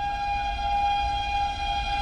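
Locomotive horn of an approaching express train held as one long steady note, slowly getting louder over a low rumble.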